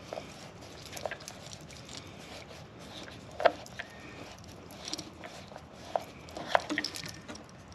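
Screwdriver driving a screw into a boat's drain plug housing: a handful of light clicks and scrapes, the sharpest about three and a half seconds in.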